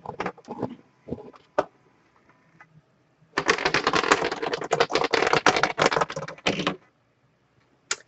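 A few sharp clicks, then about three seconds of rapid, dense clicking and clattering that stops abruptly.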